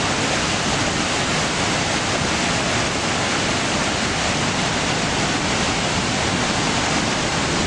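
Steady rushing roar of Victoria Falls: a large waterfall's even, unbroken noise of falling water.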